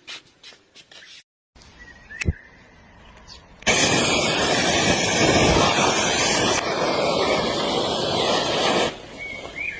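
Firecracker gunpowder burning off with a loud, steady rushing hiss for about five seconds, which thins out partway through and stops abruptly. A single sharp click a little over two seconds in.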